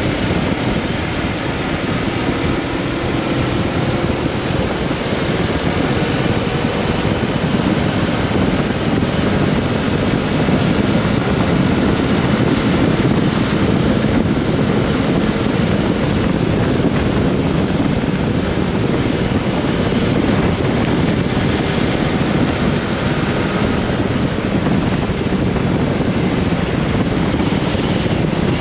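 Honda CB400X motorcycle on the move, its engine running at a steady pace under heavy wind rush on the microphone.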